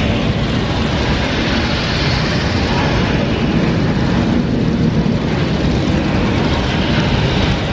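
Recorded roar and rumble of an Apollo 8 Saturn V rocket launch, played loud through a theatre's sound system as part of a launch re-enactment show. It is a steady, deep roar that holds an even level throughout.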